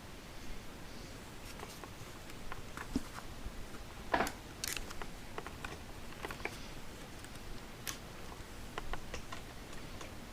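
Scattered faint clicks and light knocks of handling in a small room, the loudest a little after four seconds in.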